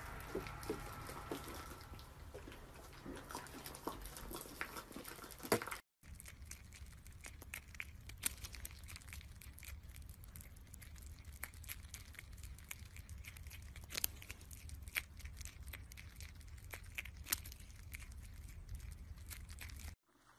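Close-up chewing: a llama munching for the first few seconds, then, after a short break, a prairie dog biting and crunching a slice of apple in quick, irregular crisp clicks.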